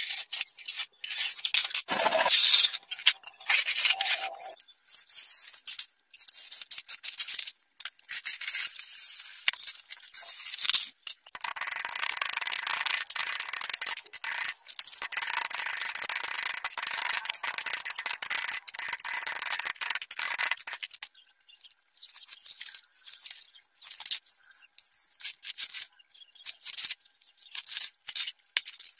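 A thin aluminium plate being cut by hand: scraping and rasping of metal broken by many sharp clicks, with a longer unbroken stretch of rasping in the middle.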